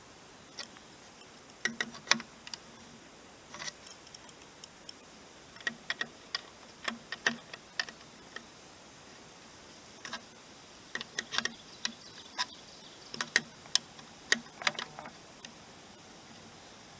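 Irregular sharp clicks and light taps, coming singly and in small clusters with short pauses between.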